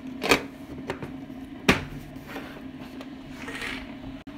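Two sharp knocks about a second and a half apart, from things being handled on a kitchen counter, over a steady low hum.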